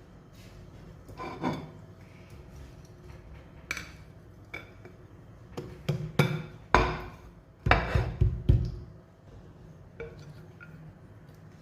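An irregular run of sharp clinks and knocks of hard kitchenware, each with a brief ring, coming thickest and loudest a little past the middle.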